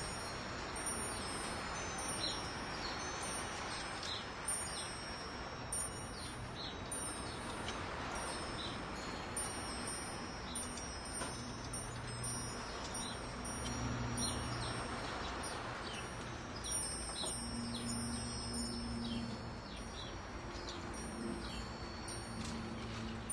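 Wind chimes ringing continuously, their high tones overlapping and sustaining over a steady hiss, with short bird chirps scattered throughout. Low humming tones come and go in the second half.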